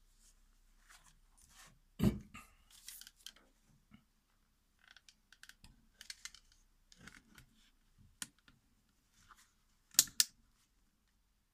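Handling noise from a power drill fitted with a carbide hole saw being picked up and held over a ceramic tile: scattered light clicks, a sharp knock about two seconds in and two quick knocks near the end. The drill is not running.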